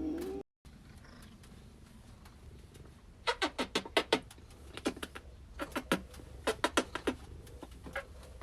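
Cat purring close up, a steady low rumble. From about three seconds in come clusters of sharp clicking smacks, a few at a time. A short pitched sound at the very start is cut off abruptly about half a second in.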